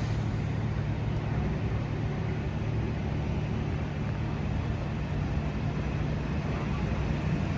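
SMRT C151 MRT train pulling out of the station: a steady low rumble and hum, with a faint high whine coming in about five seconds in.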